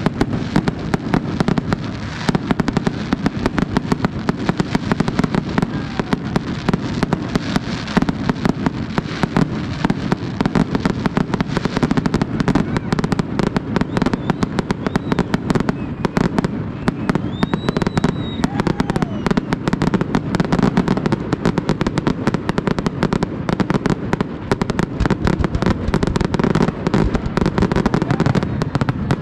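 Fireworks display: a continuous rapid barrage of bangs and crackles, many a second without a pause.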